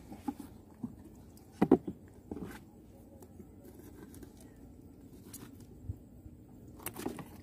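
Handling noises from a lobster trap being baited: a few scattered sharp knocks and scrapes, the loudest about a second and a half in, over a faint steady low hum.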